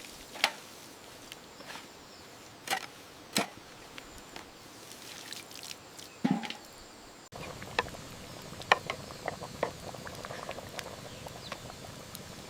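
Water pouring and dripping onto plants and soil, with scattered light taps and clicks. The background changes abruptly about seven seconds in.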